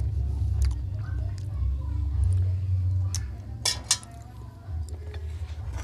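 Spoon clinking against a bowl of soup while eating, a few sharp clinks with the loudest cluster about three and a half seconds in.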